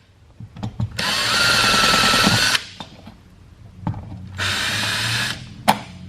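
Power drill-driver backing out screws from an electrical wall outlet, in two runs of a second or so each with a slight rising motor whine, separated by a few clicks as the bit is set on the next screw.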